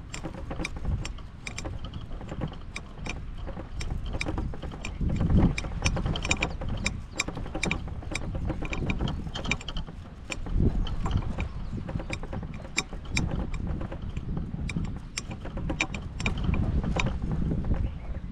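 Golf push cart with a bag of clubs rolling over the grass: irregular clicks and rattles, several a second, over a steady low rumble.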